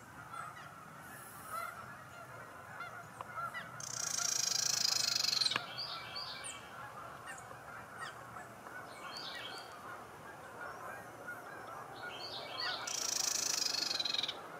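A flock of geese honking steadily, many calls overlapping. Two bursts of hiss, about 4 s in and near the end, are the loudest sounds.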